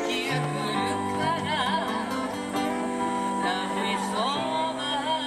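Live acoustic guitar and electric keyboard playing a song together, with held chords and a voice singing with vibrato over them.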